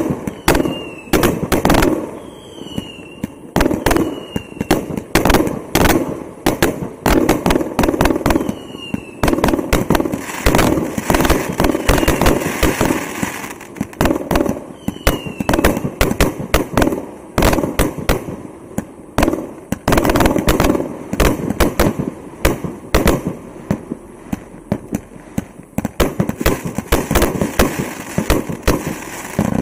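A 100-shot consumer fireworks cake with 1.2-inch tubes firing shot after shot: a rapid, continuous string of launches and bursting bangs, with a few short falling whistles now and then.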